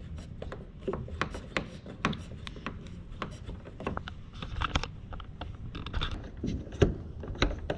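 Irregular clicks and rubbing from hands handling a roof rack's vacuum suction-cup mount, with its plastic pump plunger on the car roof.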